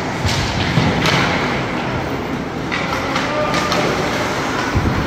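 Ice hockey play in an arena: skate blades scraping the ice and sticks clacking on the puck, several sharp strikes that echo in the rink over a steady crowd-and-rink din.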